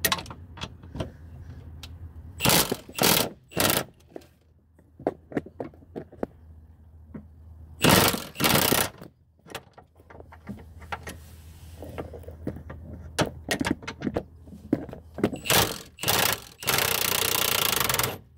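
Milwaukee impact wrench hammering on an 18 mm rear subframe bolt in several short bursts, then a steady run of about a second and a half near the end. Small metal clicks of the socket and tools come between the bursts.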